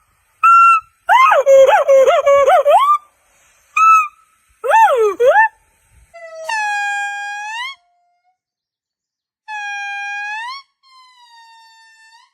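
A string of monkey calls: short rising whoops and a fast wavering run of squeals in the first few seconds. These are followed by longer held, whistle-like tones that sweep upward at the end, with clean silent gaps between calls.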